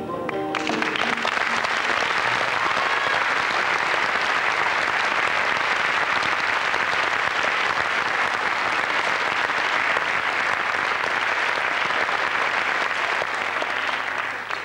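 Audience applauding, a dense steady clapping that starts about half a second in as the last notes of music fade, and dies away near the end.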